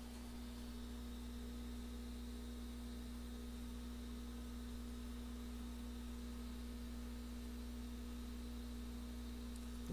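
Steady electrical hum from the running bench equipment: one clear low tone with fainter overtones, unchanging throughout.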